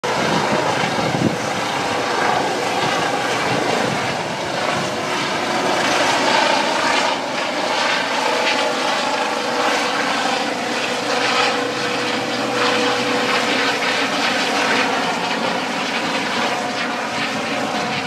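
Eurocopter EC135 helicopter lifting off and climbing away, its turbine engines and rotor running steadily.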